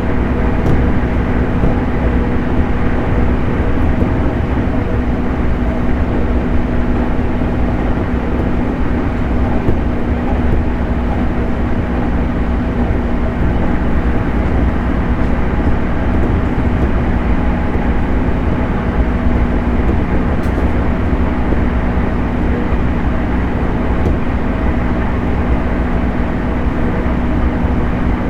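JR 211 series electric multiple unit running along at a steady speed: a constant rumble of wheels on rail and running gear, with a steady low hum over it.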